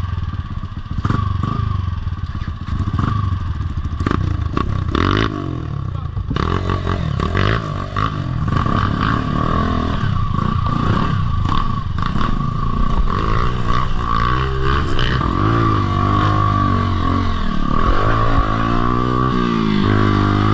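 Off-road motorcycle engine revved hard, its pitch rising and falling again and again as the rider works the throttle through mud, with sharp clicks and clattering in the first few seconds.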